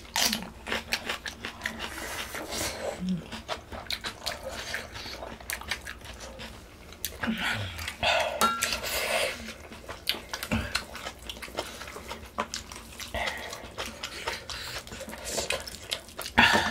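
Close-miked eating of pork-bone soup: chewing and wet mouth sounds with frequent sharp clicks of spoons and chopsticks against bowls, and a louder burst about eight seconds in.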